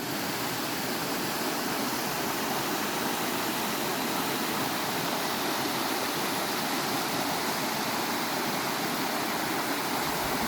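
Steady rushing of flowing water, a continuous even hiss with little low rumble.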